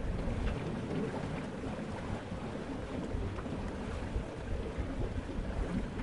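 A sailing boat under way: water rushing and splashing along the hull, a steady, even wash of sound, with wind gusting on the microphone as an uneven low rumble.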